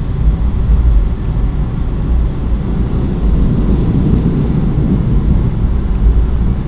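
NJ Transit passenger train running at speed, heard from aboard: a loud, steady low rumble of wheels and running gear.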